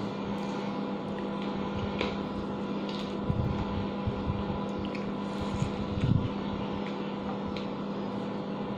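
Steady electrical hum, with soft chewing and eating sounds from a woman eating rice and chicken by hand: a few low thuds about three and six seconds in, and scattered faint clicks.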